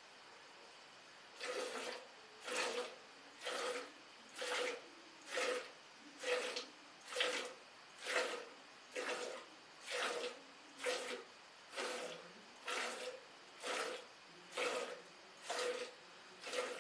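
Milk squirting into a steel bucket as a cow is milked by hand: short hissing squirts about once a second in a steady rhythm, starting about a second and a half in.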